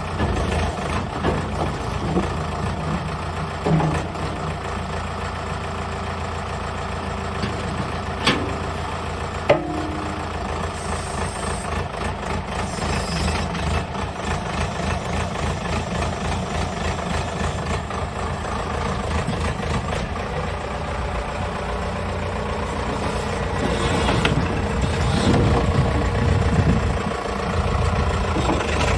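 Diesel engine of a wheel loader or excavator idling steadily, with a few sharp clanks, and growing louder about twenty-four seconds in.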